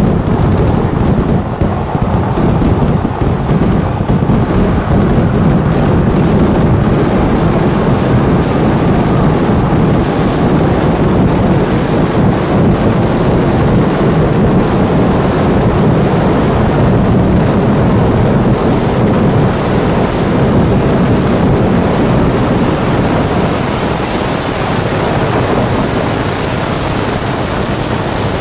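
Fireworks of a Kerala temple vedikattu going off in a dense, unbroken barrage, countless bangs and crackles blending into one continuous din that eases slightly near the end.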